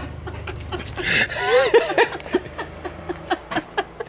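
A woman laughing: a longer giggle from about a second in, then a string of short laughs.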